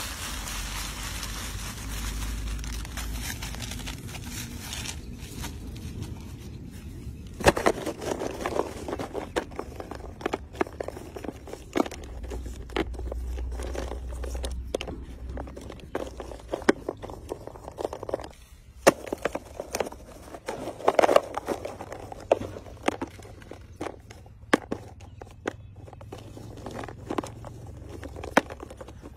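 Empty paper firecracker tubes clattering as they are scooped from a heap and packed upright into a metal tray: a steady run of small, irregular clicks and rattles, busier now and then.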